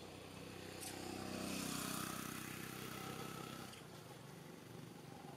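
A vehicle engine passing by, getting louder to a peak about two seconds in and then fading.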